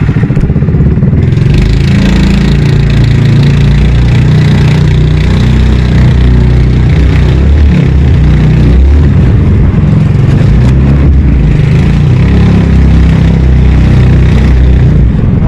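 Small fishing boat's engine running steadily and loudly, with no break.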